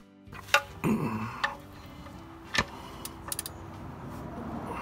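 Scattered sharp metal clicks and taps as a car's oil drain plug is screwed back into the oil pan by hand. A few single clicks are followed by a quick run of light ticks.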